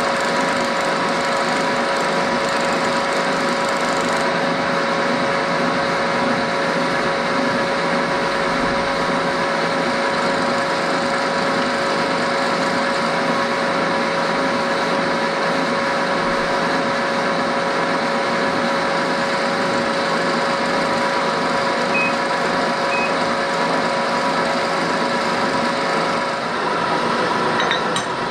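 Vertical milling machine running steadily as an end mill cuts a keyway slot along a round metal bush, with a steady whine over the cutting noise. Near the end one of the whining tones stops.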